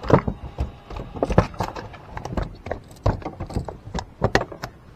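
Irregular knocks and thumps on a wooden boat deck, several a second, with some sharper taps among them.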